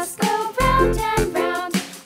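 Background music: a children's tune, its melody playing over bass notes.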